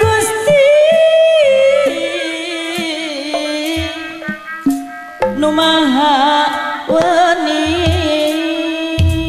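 A Sundanese sinden singing a wavering, ornamented jaipongan vocal line with a short break about five seconds in. Behind her, a band plays steady tones with a few deep kendang drum strokes.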